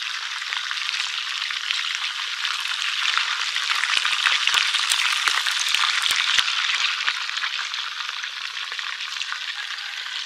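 Whole fish frying in hot oil in a metal wok: a steady sizzle with sharp pops of spitting oil, the pops thickest around the middle.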